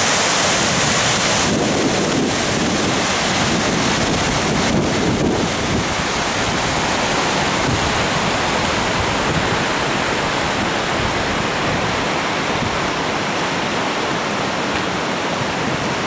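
Steady rushing of a cascading mountain creek, with wind now and then buffeting the microphone.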